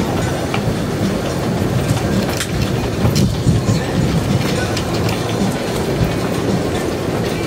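Strong storm wind buffeting the microphone as a loud, gusting low rumble, with waves slapping and splashing against a floating dock.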